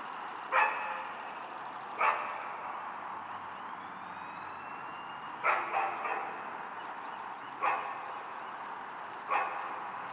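A dog barking in the distance, six barks with a quick double about halfway, over a steady background hiss of a city at night. A faint rising wail runs under it about four seconds in.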